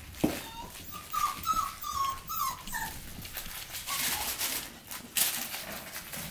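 Labradoodle puppy whining in a string of short high-pitched cries over about two seconds, with one more faint cry later. Scuffling and knocks from puppies moving about on the blankets.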